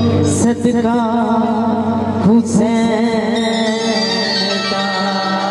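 Harmonium accompanying a woman singing a devotional song, her voice wavering through an ornamented melodic line with no clear words. There are two sharp hits, near the start and about two and a half seconds in. The voice drops out about three seconds in, leaving the harmonium's held notes.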